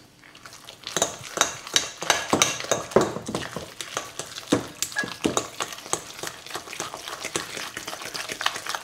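Metal fork briskly stirring a wet raw-fish and egg mixture in a glass bowl: rapid, irregular clicking and scraping of the fork against the glass, starting about a second in.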